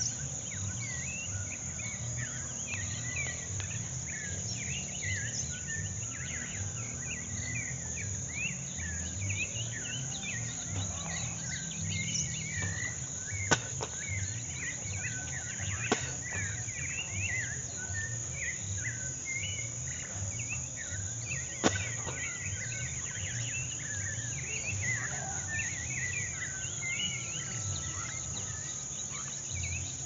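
Dawn chorus of many small birds chirping over a steady high insect trill, with a low uneven rumble underneath. Three sharp clicks stand out midway through.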